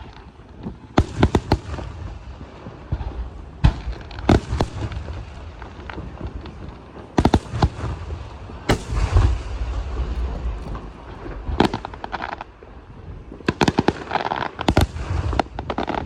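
Aerial firework shells bursting overhead: clusters of sharp bangs every few seconds, the loudest a little after one second, around four seconds, at seven to nine seconds and near the end, with a low rumble after the bigger bursts.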